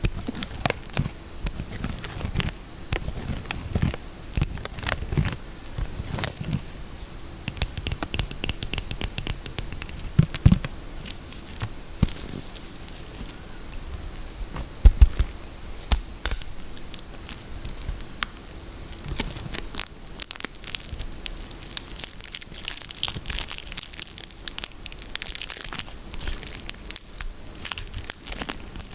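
Soap packaging being torn and crinkled open by hand, a steady crackle of paper or plastic wrap with scattered small taps. A couple of heavier knocks come about ten and fifteen seconds in.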